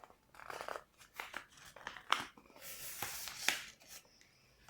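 A sheet of paper being folded and creased by hand, rustling and crinkling, with a few sharp crease sounds about two and three and a half seconds in.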